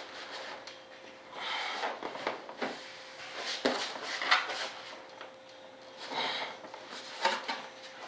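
Wing of a large RC jet model being worked loose from a tight-fitting joint on the fuselage: several short bursts of the parts rubbing and scraping against each other, with a sharp knock about three and a half seconds in.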